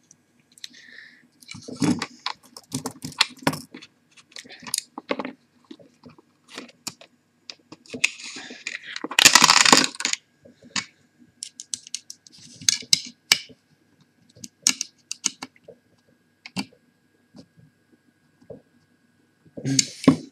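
Small metal hard-drive parts and hand tools clicking, tapping and clattering on a desk mat as a laptop hard drive is taken apart, with a longer, louder scraping clatter about eight to ten seconds in.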